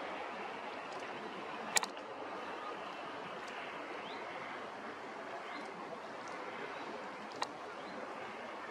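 Steady outdoor ambient noise, an even wash with no single clear source. A sharp click cuts through it about two seconds in, and a fainter one comes near the end.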